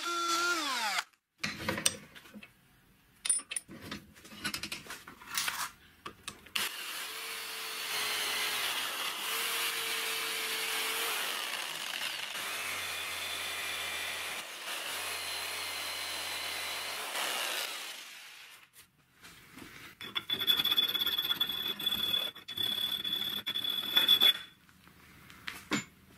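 An electric drill spins down in the first second, followed by a few knocks. Then an electric jigsaw runs steadily for about eleven seconds, cutting a star-shaped opening in a metal disc clamped in a vise. After a short pause, a further few seconds of tool noise with a steady high whine follow.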